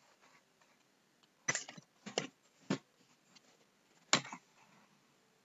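A few sharp clicks and knocks, about five in all, spread over three seconds; the last, about four seconds in, is the loudest.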